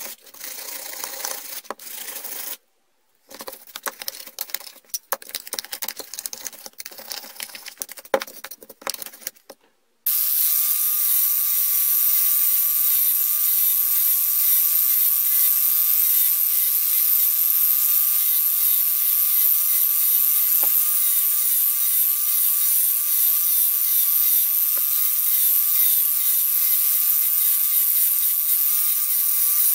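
Hand wire brush scrubbing a rusty steel hole punch in quick, uneven strokes, cut by a brief pause. About ten seconds in, an angle grinder starts and runs steadily against the punch with a loud hiss and a slightly wavering high whine.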